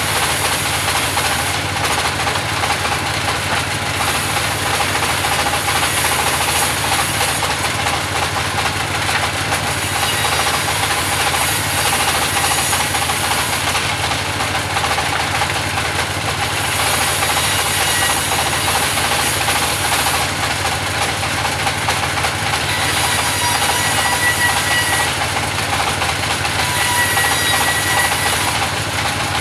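Band sawmill running steadily, its engine and saw making a continuous loud mechanical din with a constant hum, while timber is sawn for pallet stock.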